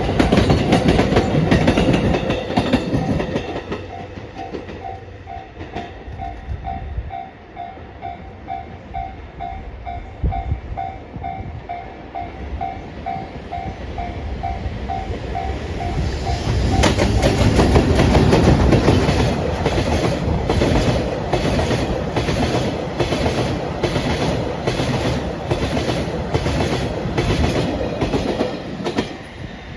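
Level-crossing warning bell beeping rapidly and steadily, with a JR Freight DD200 diesel locomotive and its train of new E531 series cars running past. About halfway through the bell stops and the train grows louder, its wheels clicking over rail joints about once a second.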